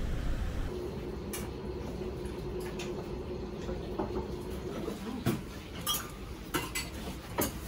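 Dishes and cutlery clinking in a small restaurant's dining room: a scattering of short, sharp clinks over a steady hum. For the first moment, before the room sound, there is a brief wash of street noise.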